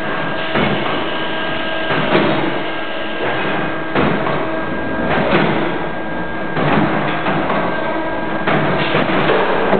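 Automated tube-bending cell running: a steady machine hum with a few held tones under a continuous clatter of moving parts, and a sharp knock or clank every second or two as the loader and bender shift.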